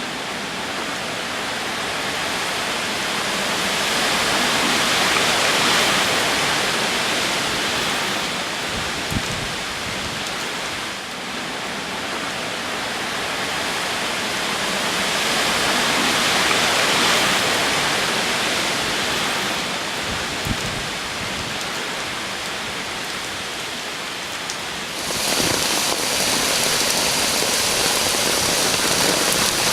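Typhoon rain with gusting wind: a dense, steady rushing downpour that swells and eases in slow waves, growing suddenly brighter and louder about 25 seconds in.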